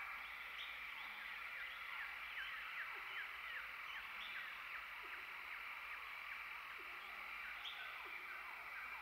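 Faint evening chorus of frogs and insects: many short falling chirps, a few each second, over a steady high trill.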